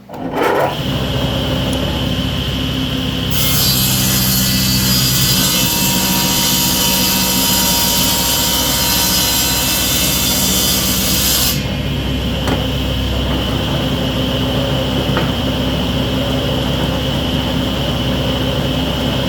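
Table saw starting up and running steadily, its blade ripping a board lengthwise to width from about three seconds in to about eleven seconds in, a loud hissing cut over the motor's hum. After the cut the blade spins freely.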